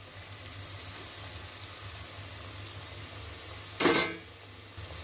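Stuffed bitter gourds deep-frying in a kadai of hot oil: a steady sizzle of bubbling oil. About four seconds in comes a brief, louder metallic clank of the slotted spoon against the pan.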